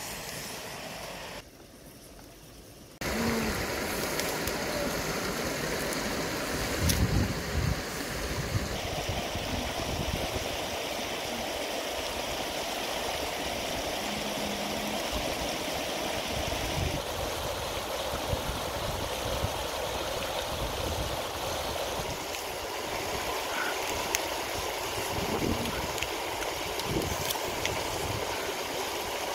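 Shallow river running over rocks: a steady rushing of water that starts about three seconds in.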